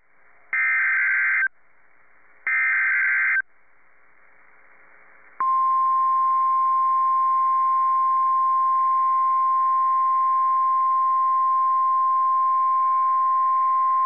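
NOAA Weather Radio emergency alert for a tornado warning: two short bursts of SAME digital header data screech, each about a second long, then from about five seconds in the steady single-pitch 1050 Hz Weather Radio warning alarm tone. A faint radio hiss lies between the bursts.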